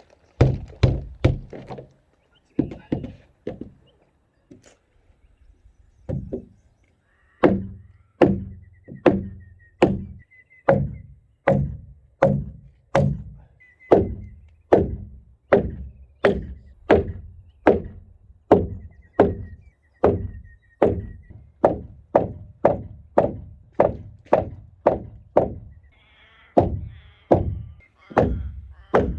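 Heavy hammer blows on a structural insulated wall panel, driving it into place: a few irregular strikes, a pause, then a steady run of about three blows every two seconds from a quarter of the way in.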